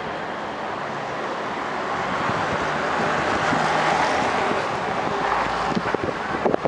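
Street traffic noise: a vehicle passing, its sound swelling louder through the middle and then easing off, with a few sharp clicks near the end.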